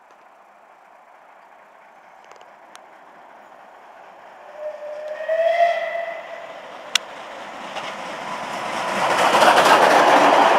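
Merchant Navy class Pacific steam locomotive 35028 Clan Line approaching at speed: its chime whistle sounds once, for about a second, around the middle. A sharp click follows shortly after. Then the rumble of the locomotive and its Pullman coaches builds into a loud rush as they pass close by near the end.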